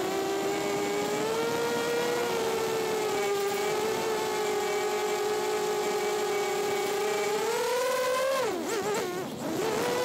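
FPV drone's electric motors and propellers whining steadily under throttle. Near the end the pitch drops and wavers, then climbs back up, as the throttle is chopped and reapplied for a manoeuvre.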